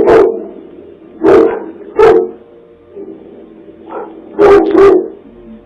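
A dog barking loudly in short groups: a double bark, two single barks, then another pair, with pauses between.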